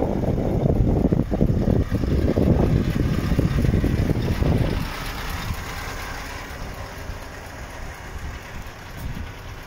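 Scania R520's 16-litre V8 diesel engine idling, under a rough low rumble that is loudest in the first half and drops away about five seconds in.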